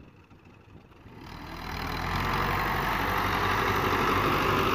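Tractor's diesel engine running as it pulls a loaded trolley, faint at first, then rising over about a second to a steady loud running.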